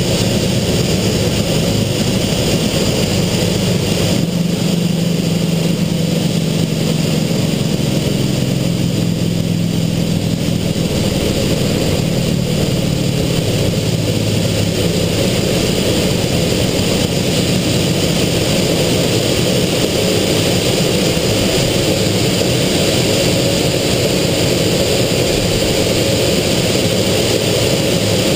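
Aero L-29 Delfín's Motorlet M-701 turbojet at takeoff power, heard from inside the cockpit with the airflow rushing past: a loud steady noise with a thin high whine over a low hum. The deepest rumble drops away about four seconds in.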